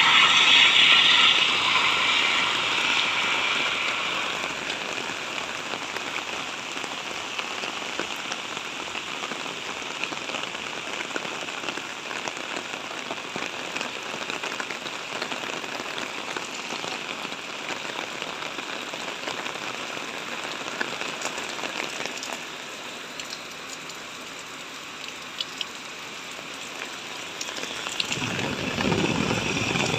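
Steady rain falling with an even hiss. A louder passing-vehicle noise fades away over the first few seconds, and a deeper rumble builds near the end.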